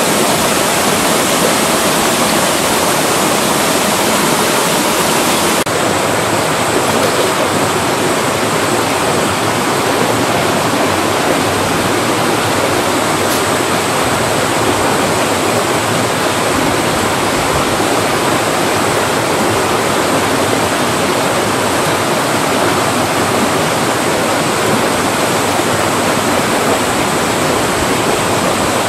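Mountain valley stream flowing, a steady loud rush of water, its tone shifting slightly about six seconds in.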